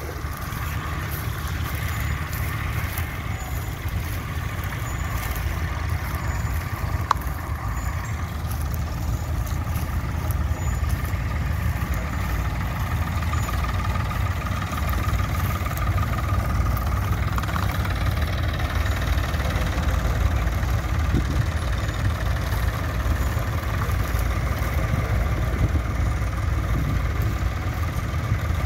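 Tractor engine running steadily with a deep low rumble and a faint higher whine over it.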